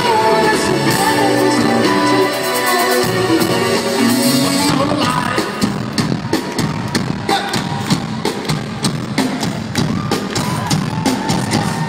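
Live rock band playing the final bars of a song: sustained chords and notes over the drums at first, then from about five seconds in mainly hard, fast drum and cymbal hits.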